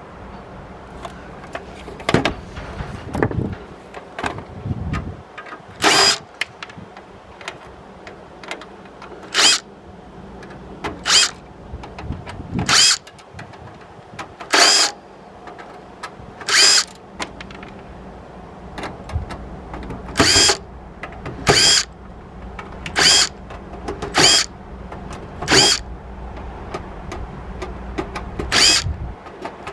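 Electric screwdriver or drill run in short bursts, about fifteen in all, each under a second, backing screws out of a DVD recorder's casing during disassembly, with small handling clicks in between.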